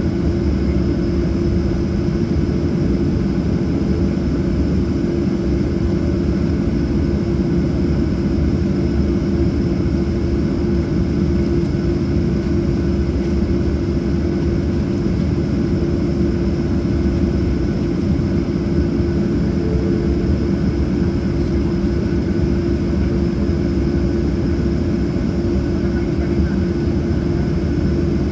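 Boeing 737-800's CFM56-7B jet engines idling, a steady drone with a constant low hum and a faint high whine, heard from inside the cabin over the wing.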